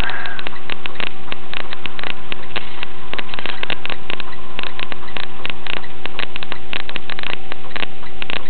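Loud, steady truck cab noise picked up by a dashcam microphone on a moving semi-truck: a constant hum of a few fixed tones over a noisy drone, crackling with dense, irregular clicks.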